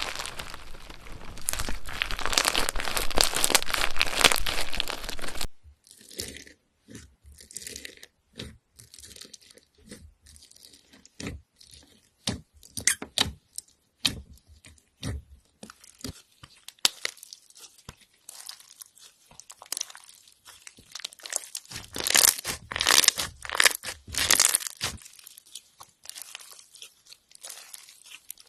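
Slime being squeezed and pressed by hand, making dense crunchy crackling. The crackling stops abruptly about five seconds in and gives way to scattered small pops and clicks, with another loud run of crackling a little before the end.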